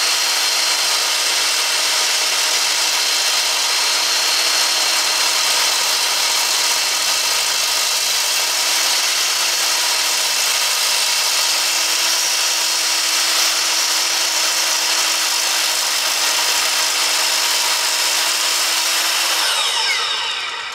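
Sliding miter saw with a Diablo aluminum-cutting blade slowly cutting through an 80/20 extruded aluminum profile lubricated with WD-40: a steady, loud, high-pitched screech of blade on metal over the motor's whine. Near the end the saw is released and the blade winds down, falling in pitch.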